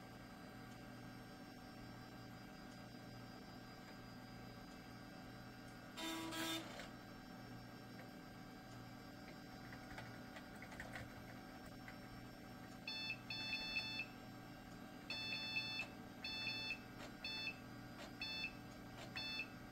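A 1999 Dell Dimension XPS T550's PC speaker beeping over a steady low hum: one short lower beep about six seconds in, then from about two-thirds of the way through a string of short high-pitched beeps in quick irregular runs, as a key is pressed over and over to bring up the Windows 98 startup menu.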